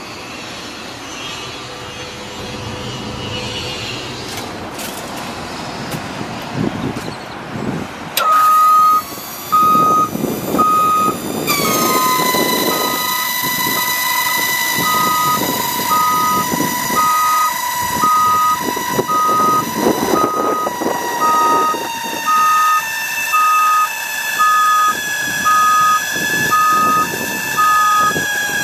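A truck's backup-style alarm beeping about once a second, starting about eight seconds in, over a steady high whine that sags in pitch near the end. Engine noise runs underneath.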